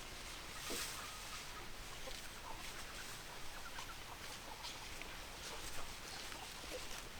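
Domestic hens clucking: many short, scattered calls over a steady background hiss.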